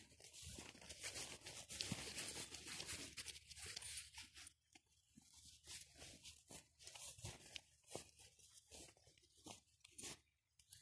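Faint, uneven rustling and scuffing of footsteps brushing through meadow grass, with a couple of brief lulls.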